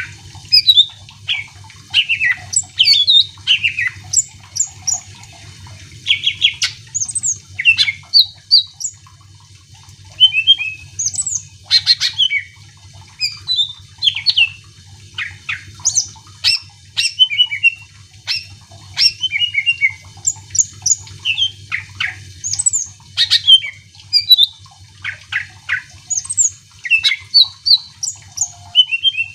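Green leafbird (cucak ijo) singing hard, a rapid, varied stream of sharp chirps and whistled notes with short pauses, over a faint low hum. It is the vigorous song used as a lure to set other caged leafbirds singing.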